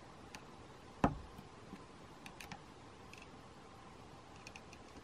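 Pliers and a screwdriver working the stainless steel wire of a wire hose clamp: a few light clicks and ticks, with one sharper knock about a second in.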